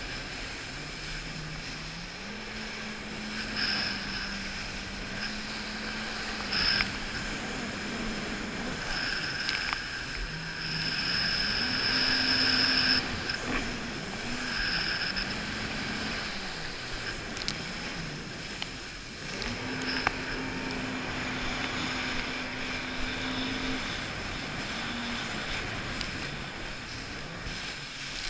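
Jet ski engine running under way, its pitch rising and falling repeatedly as the throttle is opened and eased, with a few steadier stretches between.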